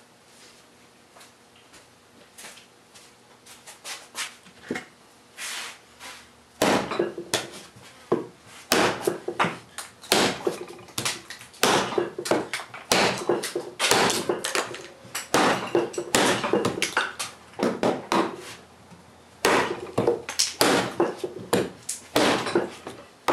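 Tomahawk chopping into a 2x4 of soft construction lumber: a run of sharp wooden chops as the blade bites out a V-notch. The strikes are light and sparse at first, then hard and frequent from about six and a half seconds in, often more than one a second.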